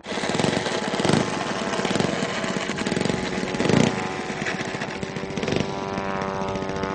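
Large RC model airplane's gas engine running loud and close. It surges in throttle about a second in and again just before four seconds in, then settles into a steady drone.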